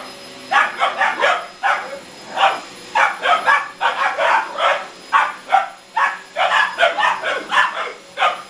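Boxer puppies barking over and over, about two to three barks a second, at a vacuum cleaner.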